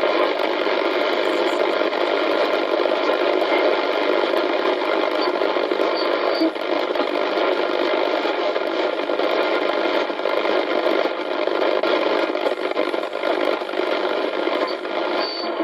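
Shortwave static and hiss from an Icom communications receiver's speaker in AM mode as it is tuned across the 7 MHz band between stations, with faint steady whistles running through the noise.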